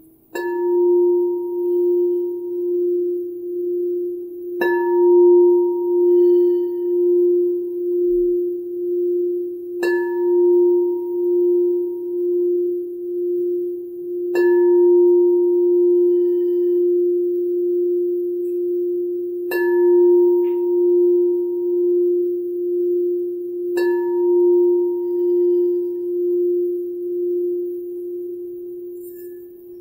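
White crystal singing bowl for the heart chakra, struck with a mallet six times, about every four to five seconds. Each strike keeps a single low ringing tone going that pulses gently, with a brief higher overtone that fades away.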